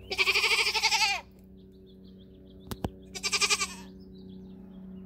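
Nigerian Dwarf goat bleating twice: a wavering call about a second long, then a shorter one a couple of seconds later.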